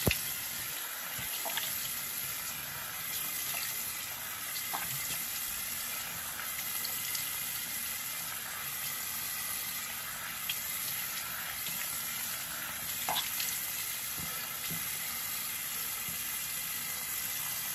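Bathroom sink faucet running steadily into the basin, a continuous hiss of water, with a few small splashes as hands rinse a face.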